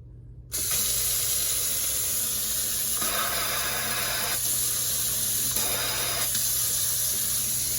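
Water running from a newly installed kitchen faucet into the sink, turned on suddenly about half a second in. The flow changes twice along the way.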